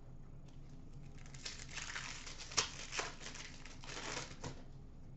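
Foil wrapper of a hockey card pack crinkling and tearing as it is opened, with a couple of sharp crackles near the middle.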